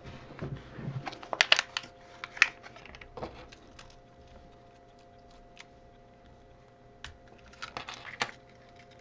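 Light clicks and taps of small hard plastic and metal parts being handled, as a car-alarm key fob is opened and its battery is fitted. They come in two bursts: one from about a second to two and a half seconds in, and another around seven to eight seconds in.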